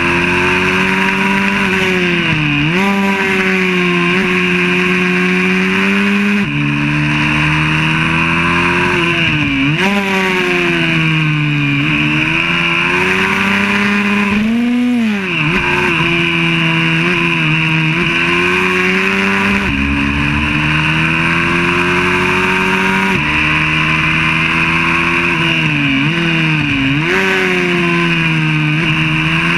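Single-cylinder four-stroke engine of a YCF 125cc pit bike running hard, heard from on board. Its pitch sinks and climbs back four times as the bike slows for corners and accelerates out, the deepest dip about halfway, with sudden small drops in pitch at gear changes on the straights.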